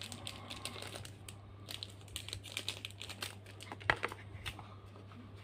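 Paper or cardboard packaging crinkling and rustling as a small boxed item is unwrapped by hand, in irregular crackles with a sharper click about four seconds in.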